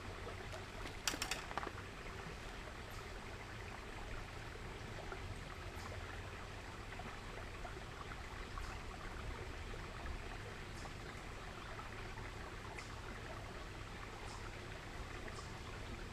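Small creek running steadily, with a brief cluster of sharp clicks about a second in.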